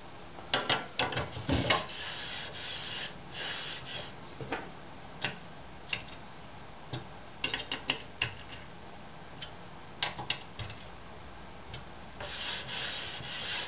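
Scattered clicks and short scrapes of a linear-rail carriage being handled and fitted onto its rail, then a longer rasping rub near the end as the carriage is slid along the rail.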